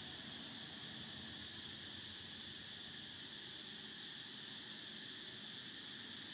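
High, steady drone of an insect chorus, unbroken and even, over a faint background hiss.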